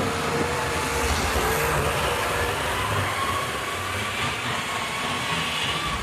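Tri-ang OO-gauge model train running on the layout's track: a steady rattle of wheels on rail joints under an electric motor whine that wavers in pitch and climbs a little about two seconds in.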